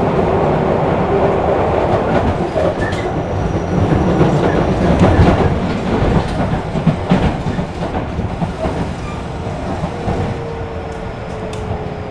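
Running sound inside a Tobu commuter electric train: steady rumble with wheels clacking over rail joints, loudest in the middle and then easing off. Near the end a faint tone slides slowly down in pitch.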